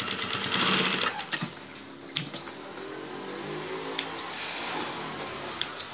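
Industrial sewing machine running in a short burst of rapid stitching in the first second. Then a steady, quieter hum carries on while the fabric is handled, with a few sharp clicks.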